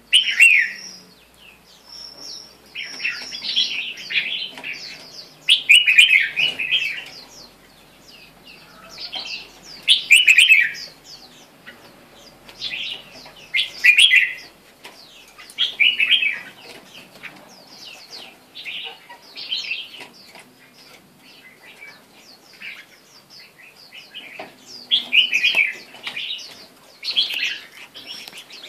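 Red-whiskered bulbul singing: short, bright, warbled phrases repeated every couple of seconds.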